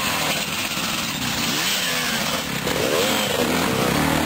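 Dirt bike engines revving hard under load on a steep grassy uphill climb, the pitch rising and falling with the throttle and sweeping up about three seconds in.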